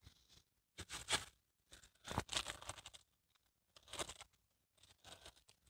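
Faint rustling of crinkle-cut paper shred filler in a cardboard box, as a hand digs through it, in three or four short bursts.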